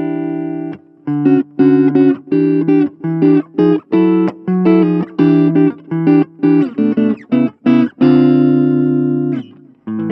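Electric guitar (PRS Custom 22) played clean through a Blackstar Fly 3 mini amp: a chord rings out, then a quick run of short, choppy staccato chords, ending on a longer held chord.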